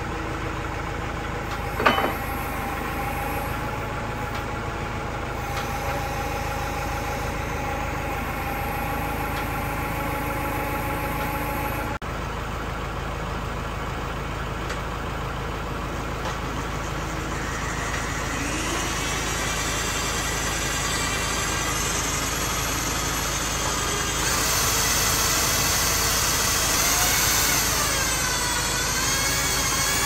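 Tractor engine idling steadily, with a sharp knock about two seconds in. A higher, wavering sound joins in during the second half and grows louder.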